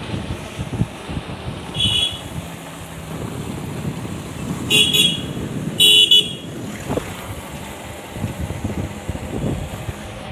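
Vehicle horn giving short toots: a brief one about two seconds in, then louder toots around five and six seconds in. Underneath, wind rush on the microphone and the running engine of a moving motorcycle.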